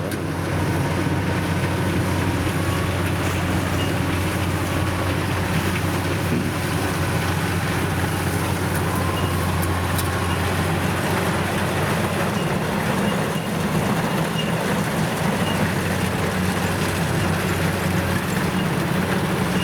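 Kubota combine harvester's diesel engine running steadily at constant speed, an even low drone with no change in pitch.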